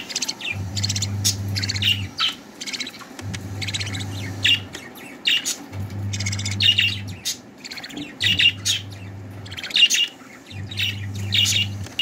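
Budgerigars chirping: a rapid run of short, high chirps that comes in clusters. Under it is a low hum that switches on and off every couple of seconds.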